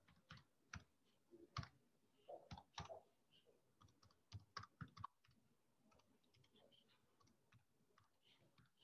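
Faint keystrokes on a computer keyboard: irregular single clicks, mostly in the first five seconds.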